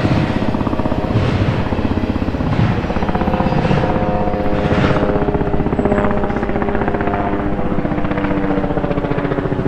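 Railroad grade-crossing warning bell ringing rapidly and steadily while the gates are down, with the rumble and a few clanks of a departing freight train's last cars in the first half.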